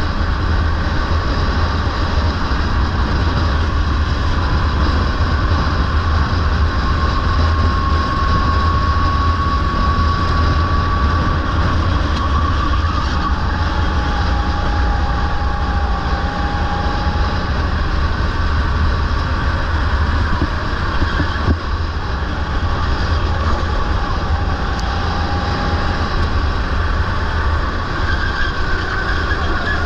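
Rental kart engine running at speed on board, its pitch rising and falling slowly through the corners, over a heavy low rumble.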